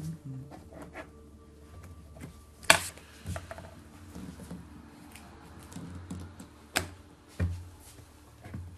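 A pen writing and signing a paper form on a table: light scratching and tapping, with two sharper clicks, one about three seconds in and another near seven seconds, over a low room hum.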